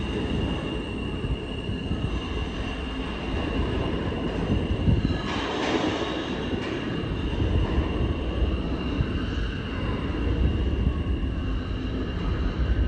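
R160A-1 subway train running away down the tunnel: a low rumble of wheels on rail with a steady high-pitched squeal over it. A louder rush of noise comes about five to six seconds in.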